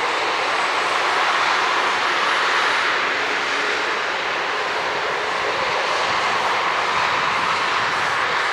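Long intermodal freight train rolling along the line: a steady rushing of its wagons' wheels on the rails.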